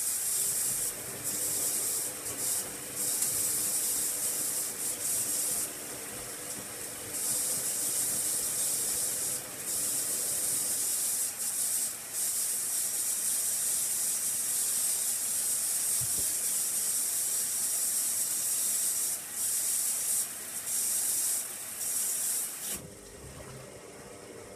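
Hoover Logic washing machine filling with water for its first rinse: a steady hiss of water through the inlet valve, dipping briefly now and then. The hiss cuts off about two seconds before the end, leaving a quieter low hum.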